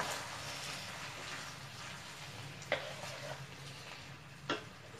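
Sauce in a hot pan of onion and capsicum sizzling steadily as cornflour slurry is stirred in with a wooden spatula, with the spatula knocking lightly on the pan twice.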